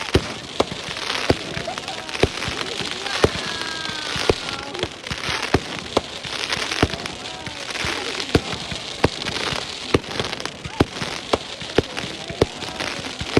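Fireworks display: a run of sharp bangs, a little more than one a second, over continuous crackling.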